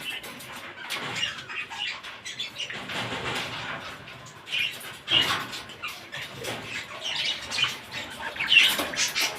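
Pet cockatiels chirping and calling in short, irregular bursts.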